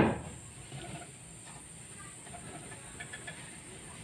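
One hammer blow on a wooden board at the very start, the last of a series nailing a new plank over a doorway, then a low, quiet background.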